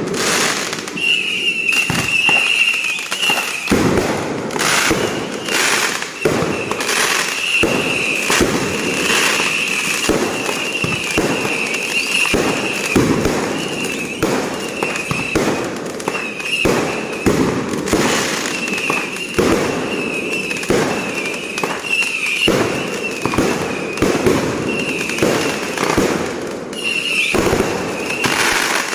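Fireworks going off in a continuous rapid barrage of bangs, several a second, with a wavering high whistle running through most of it.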